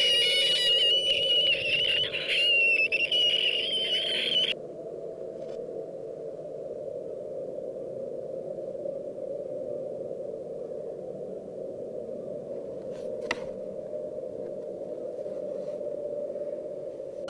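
A loud, piercing, high-pitched squealing tone that wavers in pitch for about four and a half seconds, then cuts off suddenly, leaving a steady low drone.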